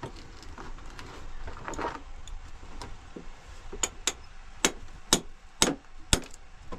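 A run of sharp knocks, about two a second, in the second half, over a steady background hiss.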